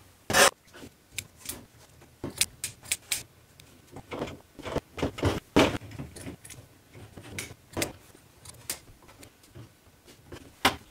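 Irregular clicks, taps and light clattering of a bow and gear handled on a workbench while a strap is fitted onto the bow.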